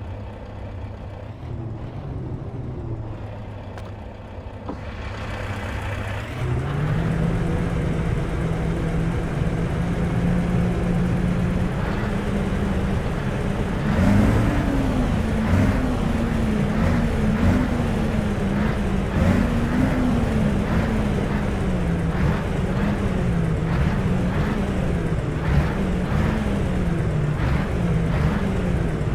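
Scania R520's V8 diesel engine on its stock exhaust, idling low, then stepping up to a higher steady engine speed about six seconds in. From about fourteen seconds the engine speed rises and falls over and over, roughly once a second.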